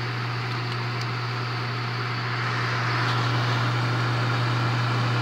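Bell & Howell 8mm film projector running, its motor giving a strong steady low hum under the even whir of the mechanism, which grows a little louder about halfway through.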